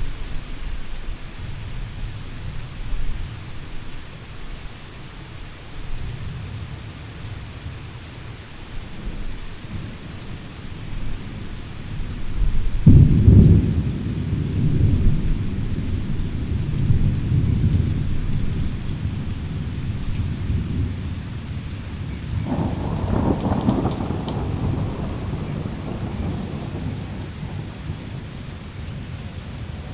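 Heavy rain falling steadily through a thunderstorm. About halfway through a sharp, loud thunderclap breaks and rolls on for several seconds. A second long rumble of thunder follows a few seconds before the end.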